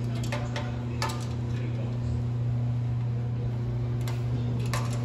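A few sharp metallic clicks and taps of hand tools working on an engine on a stand, several in the first second and a couple more about four seconds in, over a steady low hum.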